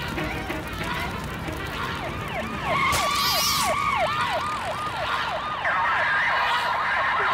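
Fire engine siren in a fast yelping wail, its pitch sweeping up and down about two and a half times a second; it comes in about two seconds in and gets louder about three seconds in, with a brief hissing burst.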